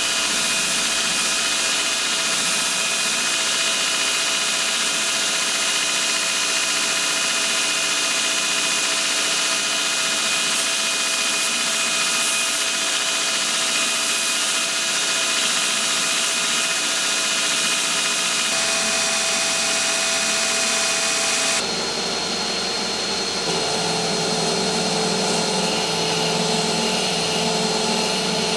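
Belt grinder running steadily, with a steel workpiece being ground against the abrasive belt over the contact wheel: a constant hiss of grinding over a steady motor whine. The tone of the noise changes about three quarters of the way through.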